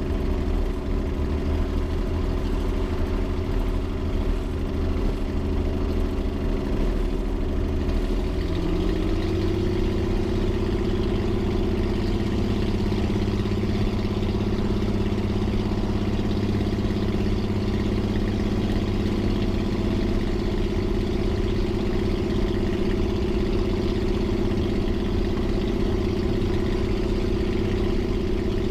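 Suzuki V6 engine of a Titan T-51 Mustang idling on the ground, with a growl through short stack exhaust pipes. About eight seconds in its pitch rises a little, then holds steady.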